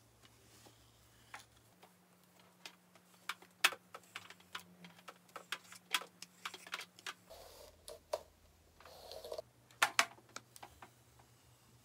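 Flat iron being worked through hair: irregular light clicks and clacks as its plates close and are handled, with soft rustling of hair now and then.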